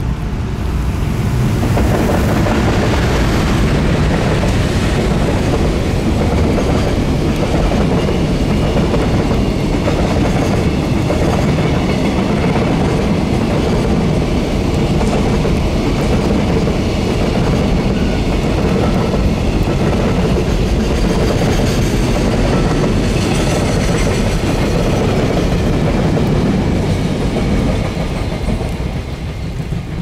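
JR Freight EF510 electric locomotive and a long rake of container wagons passing close by: a steady rumble with the clickety-clack of wheels over the rail joints. The sound builds as the locomotive goes past at the start and dies away near the end as the last wagons pass, with rain hissing underneath.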